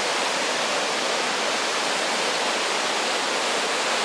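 Johnston Canyon waterfall crashing down, a steady, loud rush of falling water.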